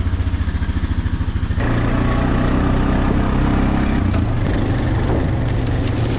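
Quad (ATV) engine running with an even, low pulsing beat, then running harder, with a fuller sound, from about a second and a half in.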